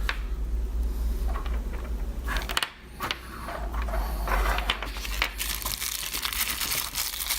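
Unboxing packaging being handled: crinkling and rustling of plastic and cardboard, with small clicks, denser in the second half, over a low handling rumble.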